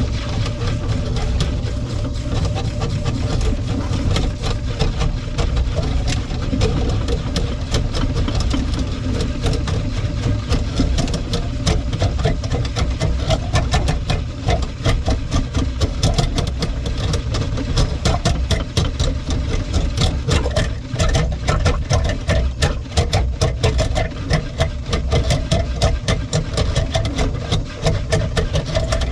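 Motor-driven drain-cleaning machine running, its spinning cable rattling and clicking in the kitchen sink drain line: a steady motor hum under dense, irregular clicks and rattles that thicken from about ten seconds in.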